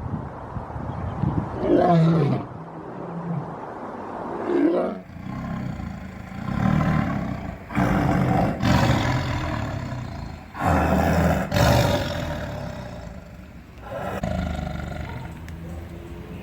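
A big cat roaring in a series of repeated calls: a few shorter, wavering roars first, then heavier, deeper roars about every second or two, easing off near the end.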